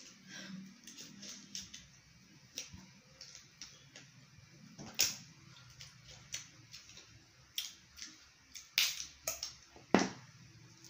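Eating sounds of people eating with their hands: chewing and mouth clicks, heard as scattered short sharp sounds. The loudest comes about five seconds in, and a cluster follows near the end.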